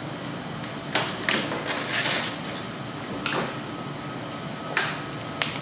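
Handling noises of clear plastic tubing being fitted into a bubble detector and clamp on a heart-lung machine: several sharp clicks spread through, with a brief rustle about two seconds in, over a steady room hum.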